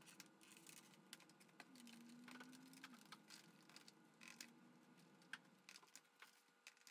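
Near silence with faint scattered clicks and light handling noises as a foam tail fin is pressed into a model airplane's fuselage.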